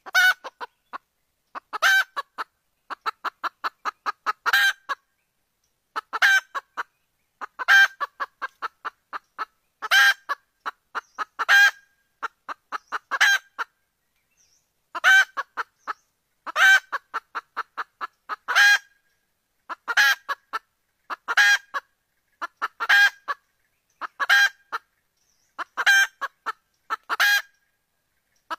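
Female junglefowl calling: quick runs of soft clucks, each ending in a louder squawking note, repeated every one and a half to two seconds. This is the hen call that is used to lure a male junglefowl.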